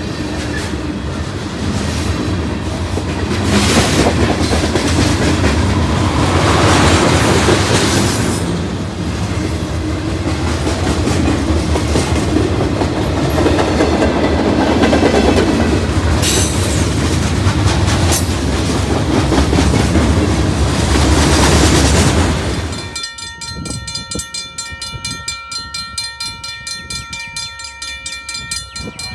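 Freight train rolling past at close range, its cars rumbling and clacking over the rail joints with brief high wheel squeals. About 23 seconds in the last car goes by and the rumble drops away suddenly, leaving a quieter steady ringing tone at several pitches.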